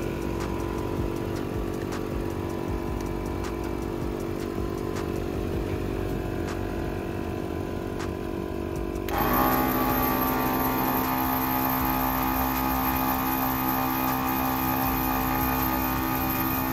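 Morrflate 10-6 twin-cylinder portable 12 V air compressor running steadily, airing the truck's tires back up. About nine seconds in the sound abruptly gets louder and brighter, then holds steady again.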